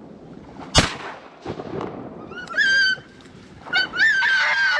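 A shotgun shot about a second in, followed by a retriever whining twice in high, drawn-out cries, keyed up to go after the downed duck.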